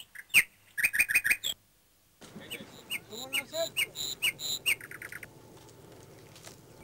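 Small birds chirping in series of short, sharp, falling calls, with a quick trill near the end. The sound drops out briefly about two seconds in, then the chirping resumes over a faint low outdoor hum.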